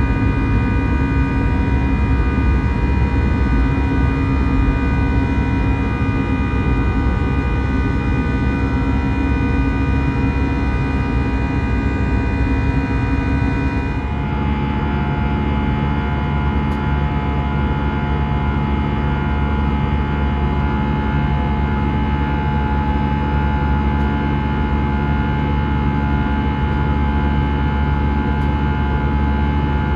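Steady jet engine and air-conditioning hum inside an Airbus A319's passenger cabin, a low rumble carrying many fixed tones. About halfway through, the set of tones shifts abruptly to a different steady pitch.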